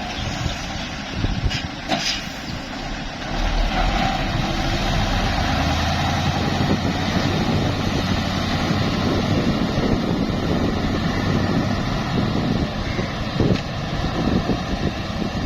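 Heavy truck's engine running with a steady low rumble, and a few sharp knocks about two seconds in.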